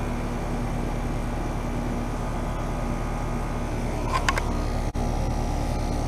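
Carrier Comfort heat pump outdoor units running steadily in heat mode, a constant hum of compressors and condenser fans, while one unit is in a defrost cycle. A brief high squeak about four seconds in.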